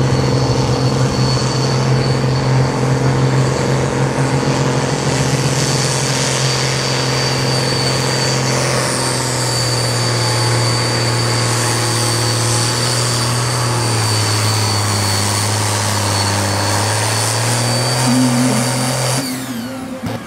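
A farm tractor's diesel engine running hard under load while pulling the weight sled, with a steady high whine over the engine note. The engine note sags about two-thirds of the way through, and the sound drops away suddenly near the end.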